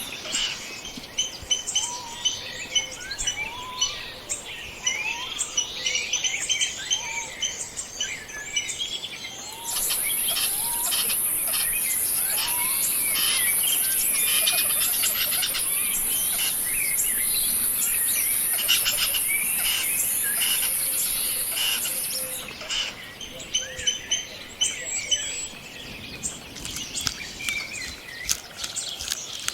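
A chorus of wild birds chirping and singing, many short calls overlapping. From about ten seconds in to about twenty-two seconds a steady, high-pitched insect buzz joins in, the loudest sound while it lasts.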